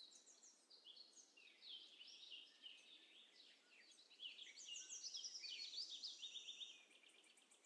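Faint birds chirping and twittering in many quick, repeated notes, busiest in the second half; otherwise near silence.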